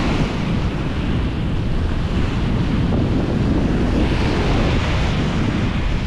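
Surf breaking and washing up a sandy beach, with wind buffeting the microphone. A wave washes in louder about four seconds in.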